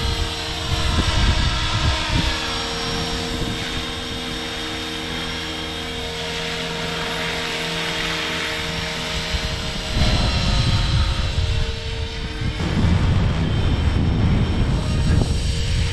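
Align T-Rex 500 XT electric RC helicopter in flight, its rotors and motor making a steady multi-tone whine at a low headspeed (throttle held at 68% by the governor). From about ten seconds in, a gusty low rumble of wind on the microphone builds, and a couple of seconds later it covers the whine.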